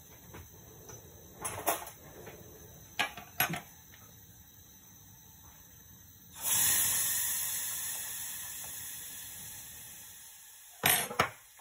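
A metal fork and scissors clink as they are set down on a wooden table. About six seconds in, a sudden hiss starts and fades slowly over about four seconds. Near the end come two knocks as a can is set down.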